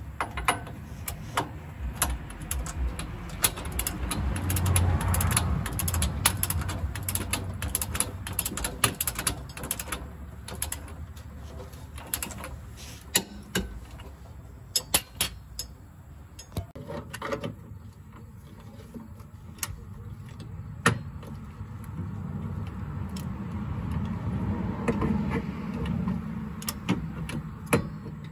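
Ratcheting torque wrench clicking in irregular short runs as it is swung back and forth, tightening a rear shock absorber's lower mounting bolt. A low rumble swells in the background twice, about five seconds in and again near the end.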